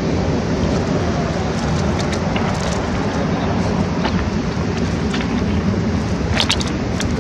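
Steady rushing of river water, with a few faint short splashes.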